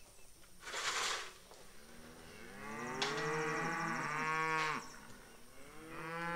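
Hereford cow mooing: one long moo of about two and a half seconds starting a little over two seconds in, and a second moo starting near the end. A brief rush of noise comes about a second in.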